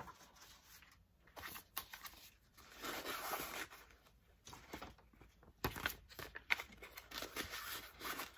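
Rustling and crinkling as bags and craft materials are handled, in several short bursts with the longest about three seconds in, and light clicks and rustles through the second half.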